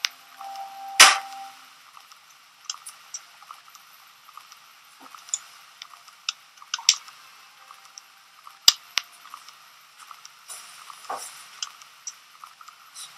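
Irregular sharp clicks and knocks, a dozen or so, over a faint steady hiss. The loudest comes about a second in and another strong one past the middle.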